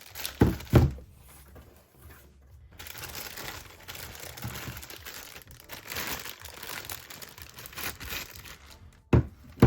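Plastic packaging crinkling and rustling as a newly unboxed radio is unwrapped by hand, with two knocks about half a second in and two more near the end.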